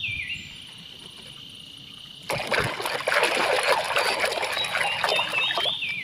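Muddy water sloshing and splashing in a plastic basin as a toy monster truck is washed in it by hand, starting about two seconds in.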